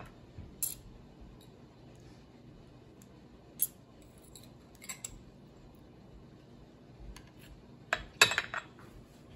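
A metal knife or spatula clinking and scraping against small dishes as steamed rice cakes are loosened and lifted out. There are sharp single clinks about one, three and a half and five seconds in, and a quick run of louder clatters near the end.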